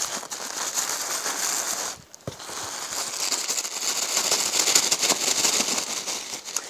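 Tissue paper rustling and crinkling as it is pulled open by hand to unwrap a package, with a brief pause about two seconds in.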